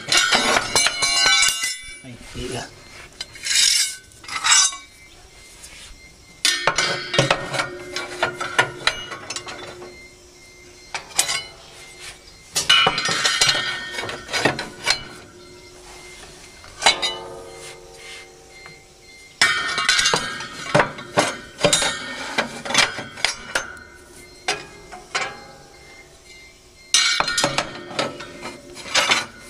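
Steel cutting knives of a Claas Variant 380 RotoCut baler clinking and scraping against the metal knife bed and rotor as they are slotted in by hand. The clinks come in several bouts, with a brief metallic ringing now and then.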